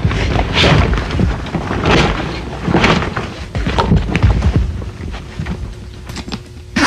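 Inflatable raft's deflated vinyl bladder and fabric outer skin being handled and pushed back into place: irregular rustling, rubbing and a few dull thumps.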